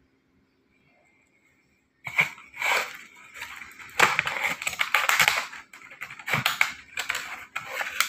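Cardboard box with its packaging being opened and handled by hand: irregular crackling and scraping of the flap, starting about two seconds in.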